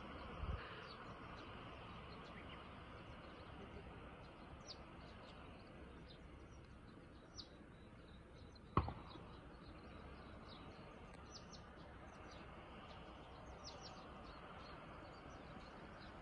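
Quiet outdoor ambience: a faint steady hiss with scattered short, high chirps. There is one sharp click a little past halfway.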